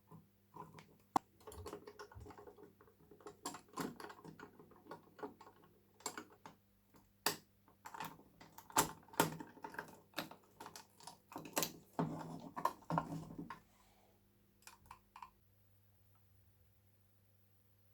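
Irregular rapid light clicks and taps of small hard parts being handled, going on for about thirteen seconds. A few fainter clicks follow, then they stop, over a faint steady low hum.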